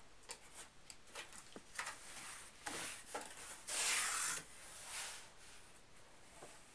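Cardboard box flaps scraping and rubbing as they are pushed open and handled, in short scattered rustles, with one louder, longer scrape about four seconds in.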